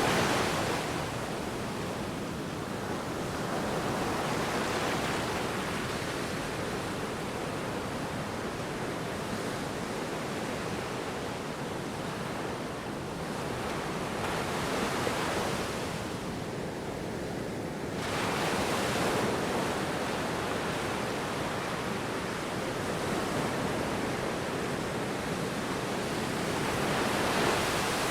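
Ocean surf washing in, a continuous rush of water that rises and falls in slow swells every several seconds. The hiss turns suddenly brighter about two-thirds of the way through.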